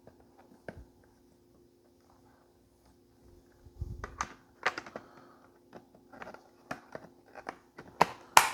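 Hard plastic clicks and knocks as the parts of a cordless vacuum's dust bin and cyclone are handled. The clicks are sparse at first, come thicker after a few seconds, and end with a louder clack near the end.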